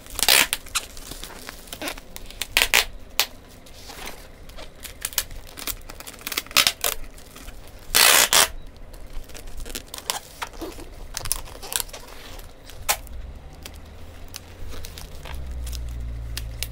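Brown packing tape being pulled off its roll in noisy strips and pressed around a bubble-wrapped parcel, with plastic crinkling in between. The longest, loudest pull comes about eight seconds in.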